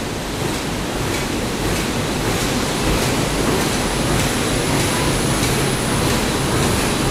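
Cold heading machines (bolt headers) running on a factory floor: a dense, steady mechanical din with faint regular knocks and a thin, high steady whine.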